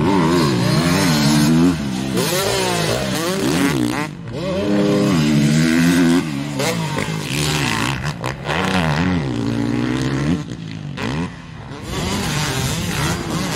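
Two-stroke motocross bike engine revving up and falling off again and again as the throttle is worked, with brief dips where it drops away.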